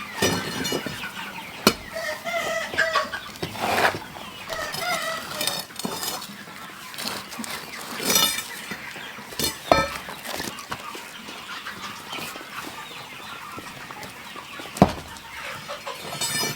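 Chickens clucking, with a few short sharp sounds in between, the loudest near the end.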